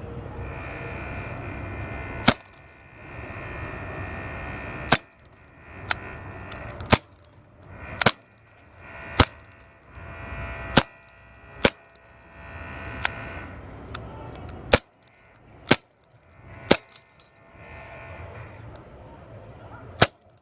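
CO2 air pistol firing 4.5 mm steel BBs: about thirteen sharp cracks, spaced roughly one to three seconds apart, over a steady background hum.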